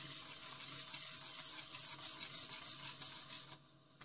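Wire whisk stirring a cocoa-milk pudding mixture in a stainless steel pot as it heats towards the boil, a steady swishing and scraping that stops about three and a half seconds in.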